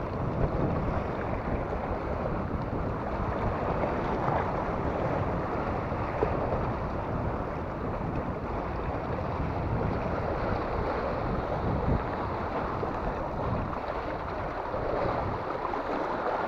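Wind buffeting the action camera's microphone in a steady low rumble, mixed with sea waves washing and breaking over the rocks.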